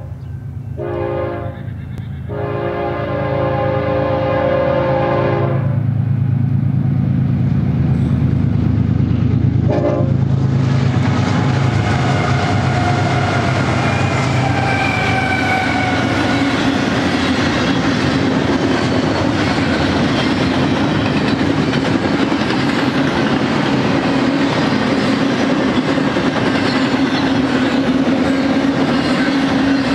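BNSF GE diesel locomotive sounding its horn in several blasts, the longest ending about five and a half seconds in, with a short blast near ten seconds, over the rumble of the engines. Then double-stack container cars roll by with steady wheel-and-rail noise and clickety-clack over the rail joints, with a faint thin squeal around fifteen seconds in.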